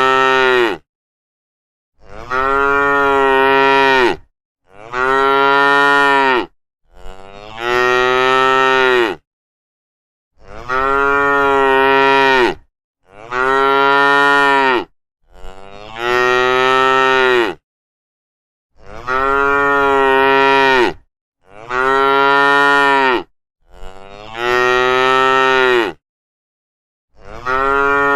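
A cow mooing: one long, drawn-out moo after another, about ten in a row, each about two seconds long and nearly identical, with silent gaps between them.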